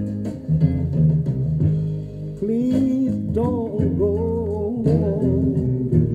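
A 7-inch soul single playing on a turntable: a bass and guitar groove, with a voice coming in to sing about two and a half seconds in.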